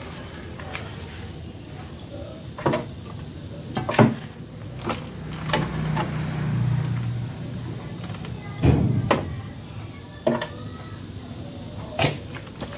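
A series of irregularly spaced knocks and clicks, about eight in all, over a steady background hiss, with a brief low hum near the middle.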